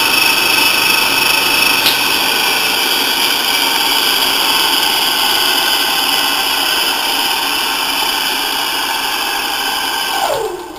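Brook 2 hp, 1400 RPM single-phase capacitor-start induction motor running unloaded at full speed, fed through a Danfoss starting-torque limiter set for maximum ramp-up time and maximum torque: a steady loud hum with a high whine. Near the end the note falls sharply and the sound gets much quieter as the motor is switched off and begins to coast down.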